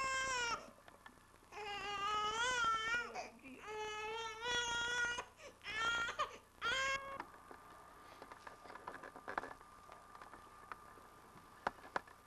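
Infant crying in a series of long, wavering wails, about five of them, which stop about seven seconds in. After that there is only a faint steady tone and a few sharp clicks, one louder click near the end.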